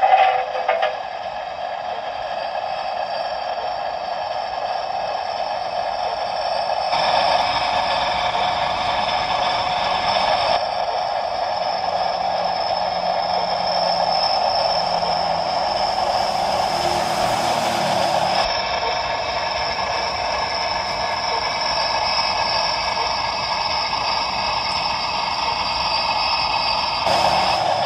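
G-scale model steam locomotive's DCC sound decoder playing a standing steam locomotive's sounds through its small onboard speaker, a steady mix of tones. A hiss joins in for a couple of seconds past the middle.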